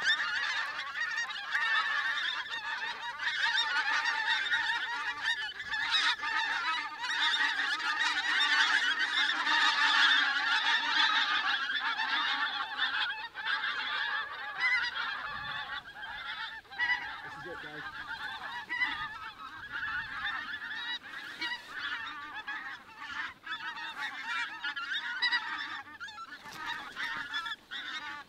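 A large flock of pink-footed geese calling in flight overhead: a dense chorus of many overlapping honks. It is loudest and thickest about ten seconds in and thins out toward the end, where single calls stand out.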